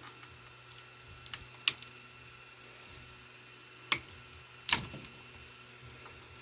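Sharp plastic clicks and snaps as support material is pried and broken off a 3D-printed articulated lizard model: a few light ticks, then two louder snaps about four and five seconds in. A faint steady hum sits underneath.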